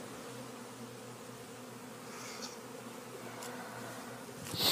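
Honeybees flying around the hive entrances, a steady hum of many wings. Right at the end comes a short, louder rush of noise.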